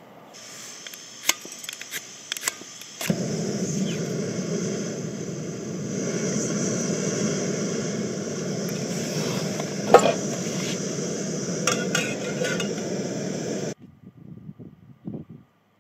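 A few sharp clicks, then a steady hissing rush of a camping gas stove burner that starts suddenly about three seconds in, with metal clinks of a cooking pot and cutlery over it. It cuts off abruptly near the end.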